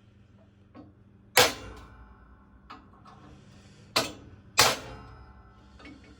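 Hammer striking a transfer punch seated in a hole of a metal crossmember plate to centre-mark a new plate beneath it: three sharp metallic whacks, each ringing briefly, the last two close together, with a few light taps between.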